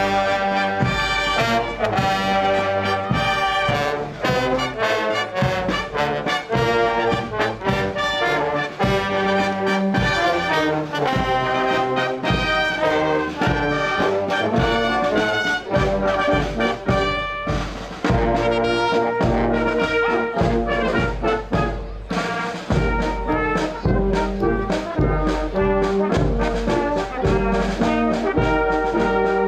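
A brass band plays a march, with many brass instruments sounding together over a steady drum beat.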